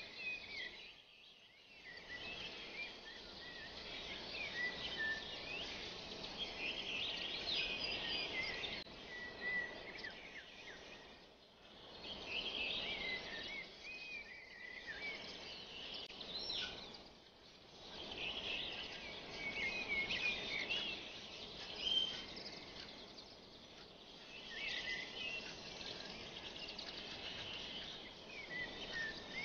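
Small birds chirping and twittering in repeated clusters over a steady background hiss, with brief breaks a few times.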